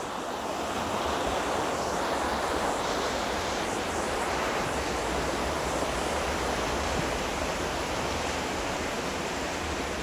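Waterfall pouring into a rocky river, a steady rush of white water without pauses.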